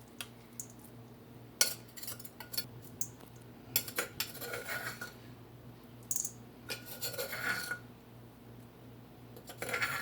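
A utensil clinking and scraping against a bowl in scattered sharp clinks and short stretches of scraping, as the crushed spice paste is scraped into the bowl of chicken wings.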